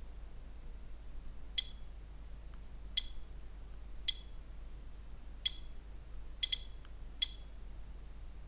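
Seven short, sharp clicks, about a second apart with two in quick succession late on, as the DJI Osmo Pocket 3's small touchscreen is tapped through its resolution and frame-rate menu. A low steady hum lies underneath.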